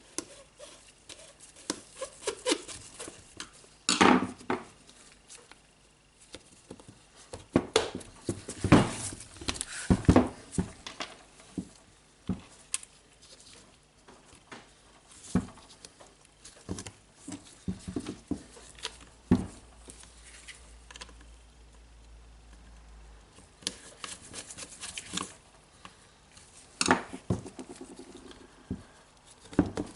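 Irregular clicks, taps and knocks of hard plastic and metal parts and hand tools being handled while a cordless rotary hammer drill is put back together, with louder knocks about four seconds in, around nine to ten seconds, and near the end.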